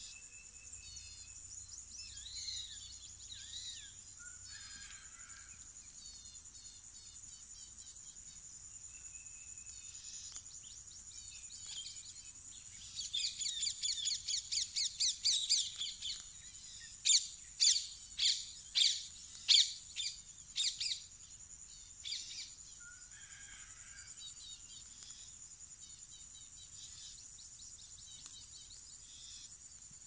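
Outdoor field ambience: a steady high-pitched insect drone with birds chirping and calling over it. About halfway through the birdsong gets busier and louder, ending in a string of about six sharp loud calls.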